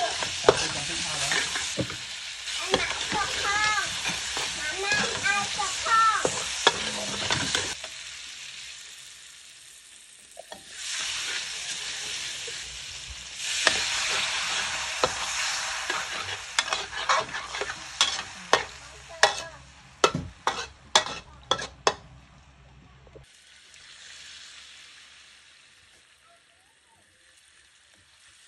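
Pork belly pieces sizzling in a hot wok while a metal spatula stirs and scrapes them around. About fourteen seconds in, water poured into the wok sets off a loud burst of sizzle, followed by a run of sharp clinks of the spatula against the wok, then a softer sizzle that dies down.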